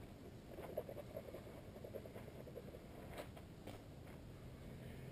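Faint shuffling footsteps on a sandy dirt trail, with a few light scuffs and ticks.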